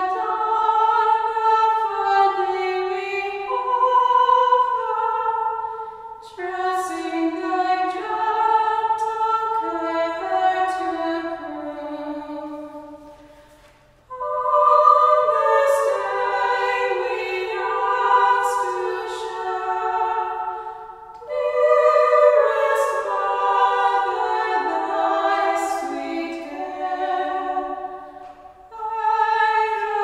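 Two women singing unaccompanied from books, a sacred song in long phrases with short breaks between them.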